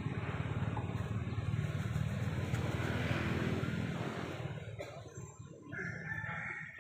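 A motor vehicle's engine passing by: a low, pulsing rumble that swells to its loudest about two to three seconds in and fades away by about five seconds.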